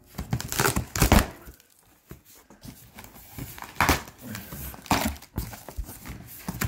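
A cardboard shipping box being opened by hand: irregular crinkling, rustling and scraping of cardboard and packing, with a few sharper knocks, loudest about a second in and again near the four- and five-second marks.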